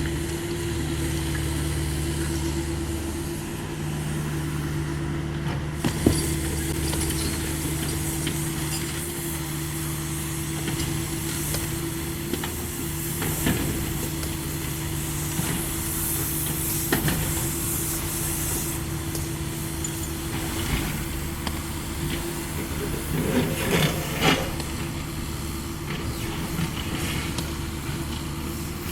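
Cat 305.5E2 mini excavator's diesel engine running steadily under working load, with a hiss and occasional sharp knocks, the loudest about 6 s in and a cluster near the end.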